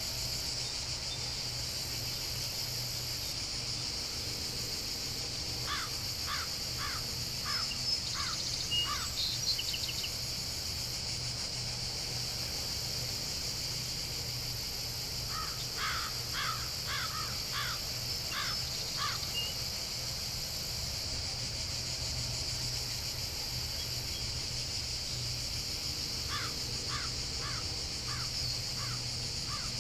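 Summer countryside ambience: a steady high-pitched insect chirring, with a bird calling in three runs of about six to eight quick repeated notes.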